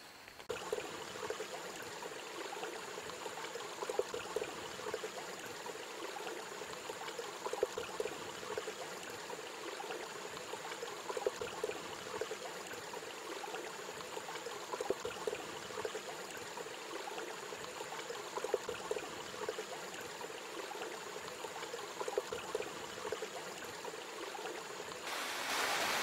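Small forest stream running steadily over rocks, with a thin steady high-pitched tone above the water.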